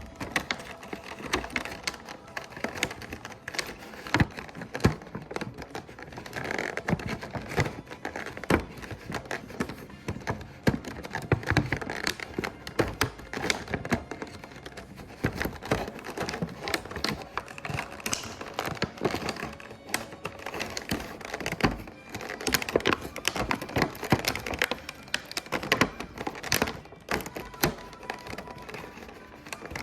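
Irregular clicking, tapping and light thunks of small plastic toy pieces and packaging being handled and set down, close to the microphone, with occasional crinkling.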